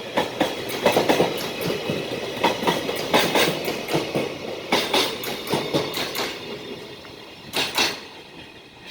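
Freight train's container wagons rolling past, wheels clicking over rail joints in quick pairs over a steady rumble. The sound thins and fades toward the end as the last wagon goes by, with a final pair of clicks.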